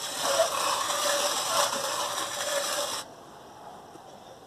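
Cast-iron hand-cranked mill grinding, a continuous rasping, crunching mechanical noise that stops abruptly about three seconds in.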